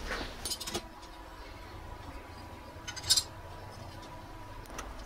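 Light clicks and clinks of a small plastic plate and motor being handled: a few faint taps in the first second, and a sharper cluster of clinks about three seconds in.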